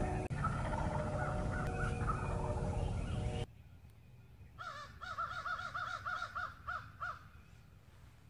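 A loud chorus of wild birds calling, which cuts off sharply about three and a half seconds in. After a short pause, a pot-and-peg turkey call is scratched through a quick run of about ten soft hen yelps. Each yelp rises and falls in pitch, and the run lasts about two and a half seconds.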